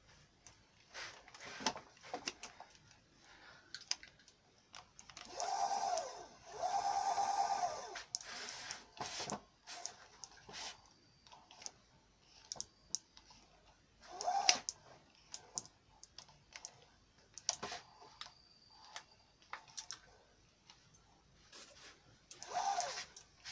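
Scattered clicks and knocks of small parts, wires and tools being handled while wiring up an electric scooter's deck. A few longer pitched sounds come through, the longest about five seconds in.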